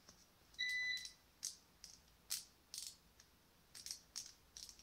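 A digital multimeter's continuity beeper gives one short high beep, then a series of sharp plastic clicks and knocks as a cordless screwdriver's trigger switch is handled and turned over.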